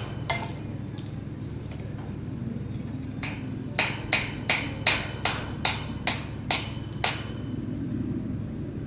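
Hammer blows on metal ground spikes being driven in to anchor a greenhouse: one strike just after the start, then a steady run of about ten ringing strikes, roughly two and a half a second, from about three seconds in to about seven. A steady low rumble runs underneath.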